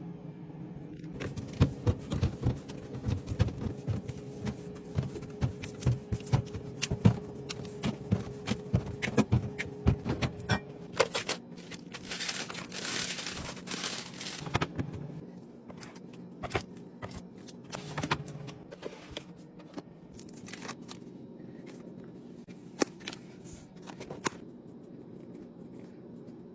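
Containers and packaging handled while restocking a refrigerator: a quick run of clicks and taps over a low hum, a few seconds of rustling near the middle, then scattered taps.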